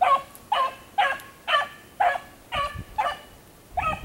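A lone beagle baying as it runs a rabbit, giving short barks about two a second: the hound is on the rabbit's scent trail.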